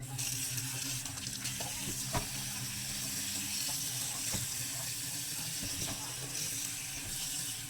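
Sun-dried Spanish mackerel frying in hot oil: a steady sizzling hiss with scattered small pops.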